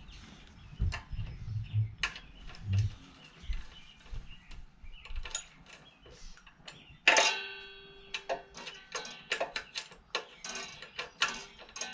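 Metal tools and bolts clicking and clinking against the mini bike's frame and engine mounts while the mount bolts are being fitted. About seven seconds in comes one loud metal clang that rings briefly.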